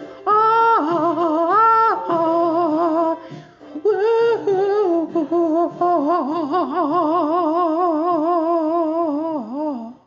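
Wordless vocal melody closing a comedy song: a few long sung notes, then a long note with a wide, fast vibrato through the second half, dipping in pitch and stopping abruptly at the end, over faint accompaniment.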